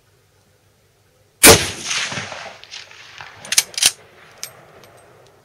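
A single rifle shot from a Swiss K31 carbine in 7.5×55 mm Swiss, with a short echoing tail. About two seconds later come a few sharp metallic clicks as the straight-pull bolt is worked to eject the case and chamber the next round.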